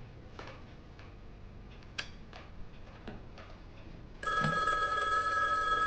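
Telephone ringing: a steady ring of several held tones begins suddenly about four seconds in, after a few faint clicks.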